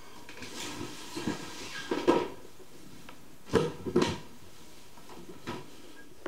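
Side panel of a Cooler Master Storm Scout PC case being unlatched and pulled off: soft scraping and several clunks, the loudest two knocks about halfway through.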